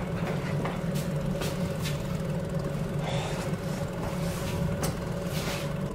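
A steady low hum, with a few faint knocks and rustles as someone walks past.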